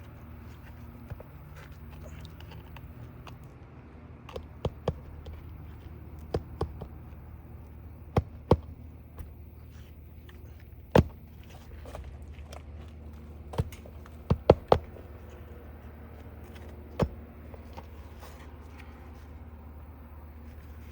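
A hammer tapping roofing nails into asphalt shingles: irregular sharp knocks, several in quick pairs and one quick run of three, over a steady low hum.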